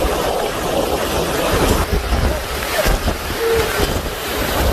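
Hurricane-force wind and heavy rain in a continuous rush of noise, with gusts buffeting the microphone.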